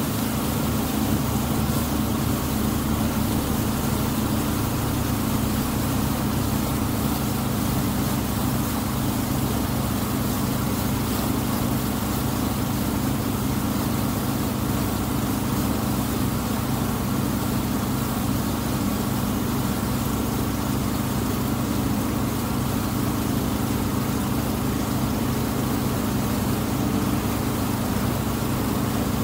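Engine of the wooden water bus Tuula II running steadily, heard from its deck: an even, low drone with a fine regular pulse.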